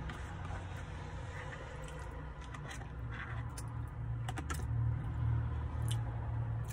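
Plastic fork scraping and tapping against a paperboard fry tray, making a few short sharp clicks, with chewing. Underneath is a low steady hum that grows louder in the second half.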